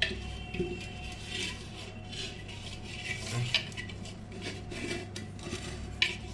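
A hand rubbing ghee around the inside of a terracotta cooking pot to grease it: soft rubbing and scraping of skin on clay, with a few light knocks against the pot, the sharpest near the end.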